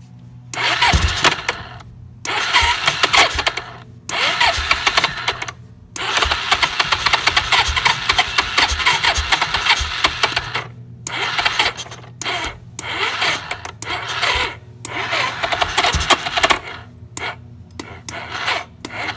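Suzuki DR-Z400E's 398 cc single-cylinder engine being cranked on the electric starter in about nine stop-start bursts, the longest near the middle lasting about five seconds, with a harsh clanking as it turns over. It never catches. The battery is flat, but the owner is sure something else is wrong too.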